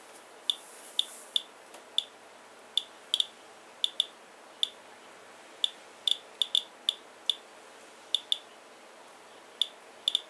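Geiger counter clicking at uneven, random intervals, about two clicks a second, as it counts the radiation from a rainwater sample on a paper towel.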